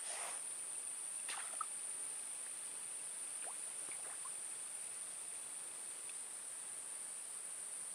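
Steady high-pitched drone of insects, with a few faint short chirps a second or so in and again around three to four seconds in.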